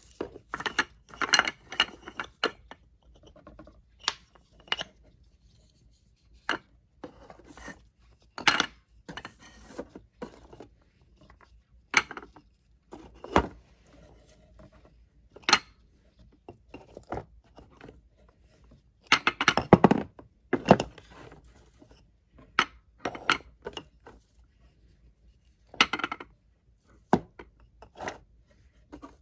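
Painted wooden balls and cups handled and knocking together: irregular single clacks and taps as balls are lifted out of cups and dropped onto the pile in a bowl, with a quick flurry of clacks about two-thirds of the way through.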